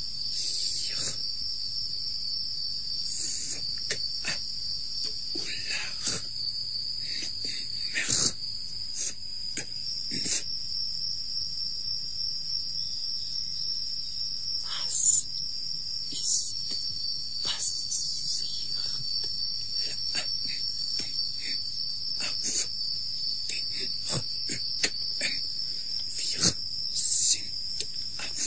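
Crickets chirring steadily, with irregular sharp clicks and crackles scattered throughout.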